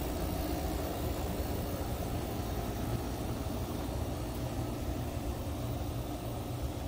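A steady low rumble of outdoor background noise, with no distinct events.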